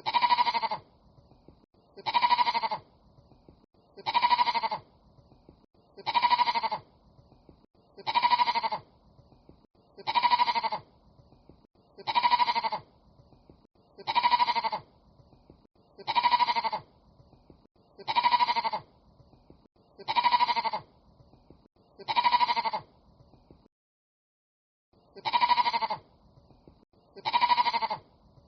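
An animal's bleat, the same call repeated about every two seconds, fourteen times, with a longer pause shortly before the end.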